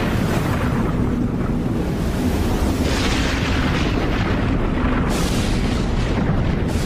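Cinematic logo-intro sound effects: a continuous deep rumble, with rushing swells of hiss about three seconds in, at five seconds and near the end.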